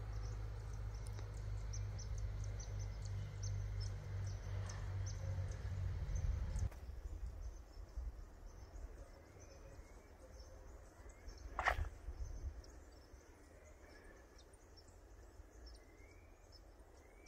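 Outdoor ambience: a low wind rumble on the microphone that cuts off abruptly a little under halfway through, with small birds chirping faintly and high throughout. In the second half a bird gives short rising calls every second or two, and there is one brief louder call or sound about two-thirds of the way in.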